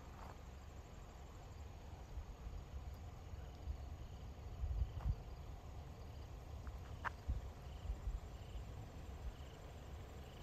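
Wind gusting over the phone's microphone, an uneven low rumble that swells and fades. A faint insect chirps at an even pace behind it.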